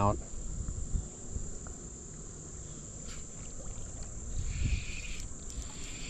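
Steady high-pitched insect chorus, cricket-like, running on without a break over a low background rumble.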